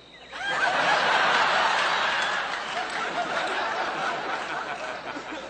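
Studio audience laughing: a wave of laughter that swells within the first half second, holds for a couple of seconds, then slowly dies away.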